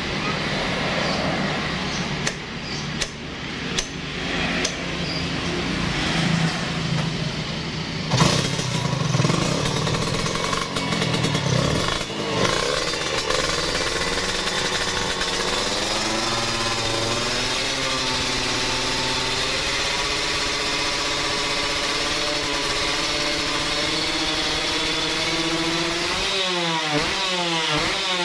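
Yamaha F1ZR two-stroke single-cylinder engine, in a 116 cc build, running. It is blipped unevenly in the first half, then holds a steady idle with a slightly wavering pitch, and is revved up and down repeatedly near the end.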